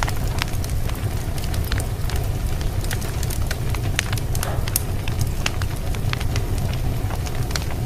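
Wood fire in a fireplace crackling, with frequent sharp pops and snaps over a low steady rumble.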